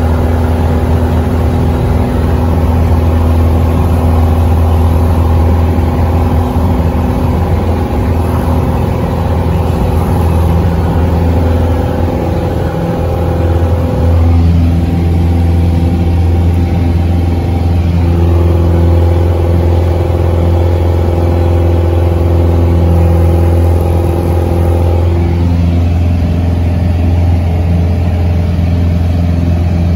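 A Piper light aircraft's single piston engine and propeller at takeoff power, heard loud and steady from inside the cabin during the takeoff roll and climb-out. The engine note shifts slightly a few times.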